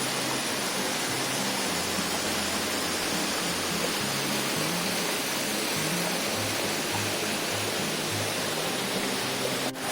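Steady rushing of a small waterfall, with background music's low bass notes changing underneath.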